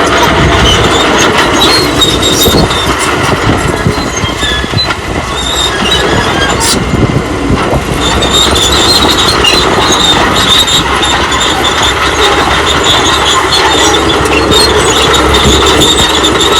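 Old crawler bulldozer working: engine running with steel tracks clattering and squealing, the squeal strongest in the second half.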